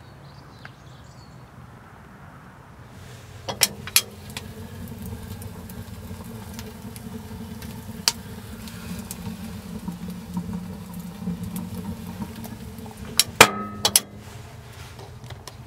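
Fire burning in a small steam locomotive's firebox while the engine is being steamed up, a steady low rumble. It sits between sharp metallic clanks about three and a half seconds in and again near the end.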